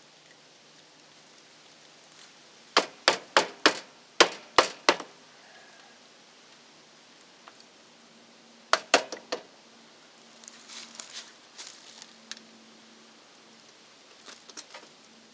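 Sharp knocks or taps from hand-tool work in two quick runs: about eight strikes, then four or five more a few seconds later, followed by lighter clicks and small rattles.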